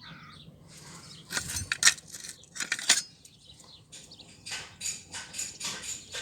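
Loose metal parts clinking and clanking as someone rummages through a pile of scrap metal: a few sharp clanks, then a quicker run of rattling clinks toward the end.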